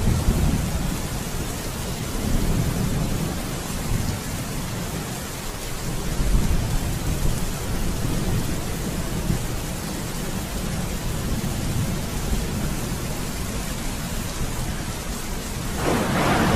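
Steady rain with low rumbles of thunder, and a louder swell of hiss near the end.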